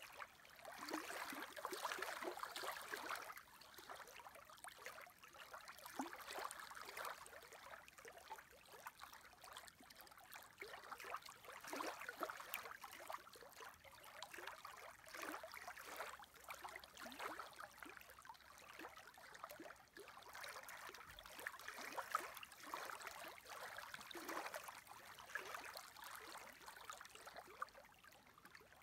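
Small waves on a lake lapping faintly at the shore in irregular little splashes.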